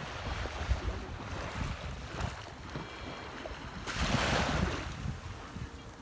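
Small sea waves lapping and washing onto the beach, one wash swelling up about four seconds in, with wind buffeting the microphone.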